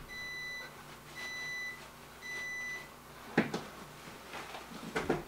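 Microwave oven beeping three times, each beep about half a second long and a second apart, signalling that its heating cycle has ended. Then two sharp knocks, the first being the loudest sound.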